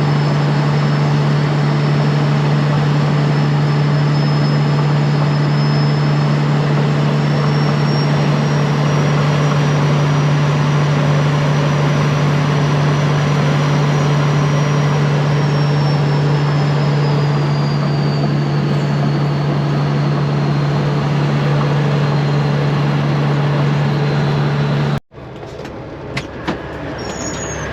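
Straight-piped semi truck's diesel engine droning at a steady cruise under load, one deep constant note with a faint high whine above it that rises a little and then falls. About 25 seconds in it cuts off to a quieter engine sound with a few clicks.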